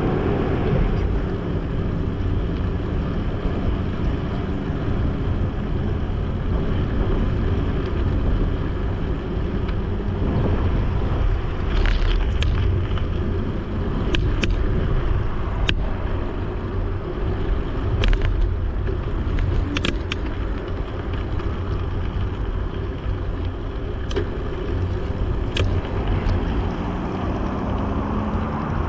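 Steady low rumble of a Dahon Mu D10 folding bicycle being ridden, with road traffic passing alongside. Partway through comes a scattered run of sharp clicks and rattles as the bike rolls over a stretch of paving blocks.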